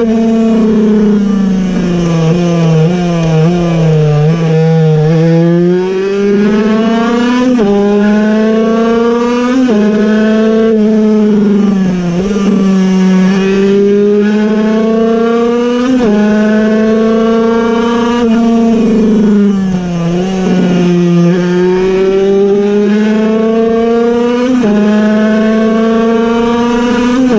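A Puch Cobra 50cc air-cooled, piston-port two-stroke racing engine at high revs, heard from on board. The pitch climbs and drops again and again through the gears, and falls low twice for a few seconds before climbing back.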